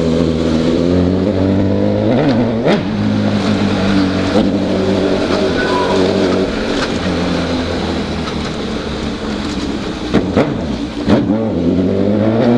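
Honda CB1000's inline-four engine running under way, its pitch mostly steady, dipping a little about two seconds in and again just after ten seconds, then rising near the end.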